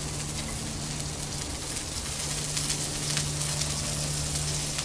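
Asparagus and scallion pieces sizzling in oil on a hot Blackstone flat-top griddle: a steady hiss with many small crackles and pops. A steady low hum runs underneath.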